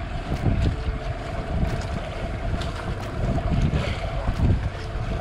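Wind buffeting the microphone on a moving small boat, over the steady hum of its engine and splashing water, with a few faint clicks from the big conventional reel being cranked.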